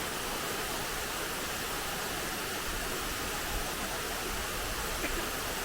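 Waterfall rushing in a steady, even noise of falling water, with a deeper low rumble joining about halfway through.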